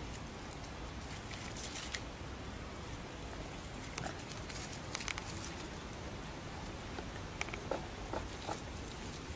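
Outdoor ambience: a steady background hiss with scattered small clicks and rustles, and a few short chirps near the end.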